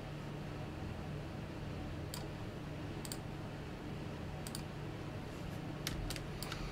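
Computer mouse clicking: a few light, sharp clicks, some in quick pairs, starting about two seconds in and coming closer together near the end, over a low steady hum.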